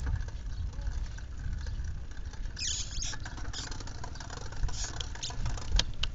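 Shimano thumb shifter on a bicycle handlebar being pushed through its gears: a few irregular, scratchy clicks of the lever ratchet over a steady low rumble. The shifter is very stiff, a sign of a dirty, dragging shift cable.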